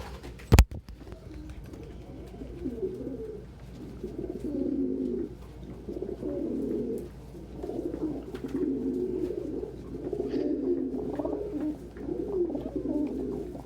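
Several domestic pigeons cooing close by, their low, rolling coos overlapping in repeated phrases. A single sharp knock sounds just after the start.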